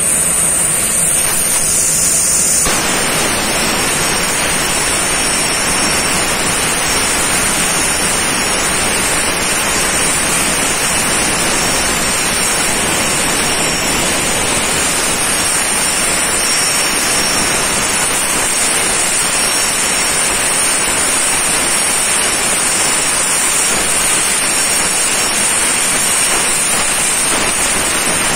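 CNC plasma cutting torch cutting steel sheet: a loud, steady hiss with a thin high whine over it. The sound shifts and brightens about two and a half seconds in.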